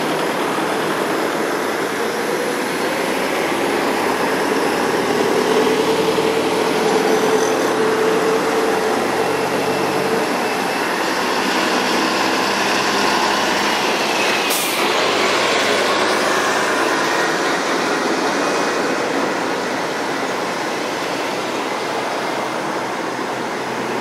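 Heavy vehicle engine running steadily, a loud even mechanical noise, with one short sharp sound a little past the middle.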